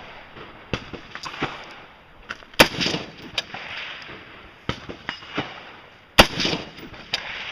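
Semi-automatic AR-style rifle fired at a slow, deliberate pace: four main shots about one and a half to two seconds apart, each trailing off in an echo, with fainter cracks between them.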